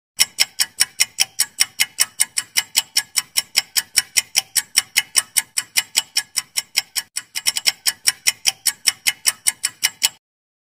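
Ticking sound effect of a ten-second quiz countdown timer: rapid, even clock-like ticks, about five a second, that stop abruptly when the time is up.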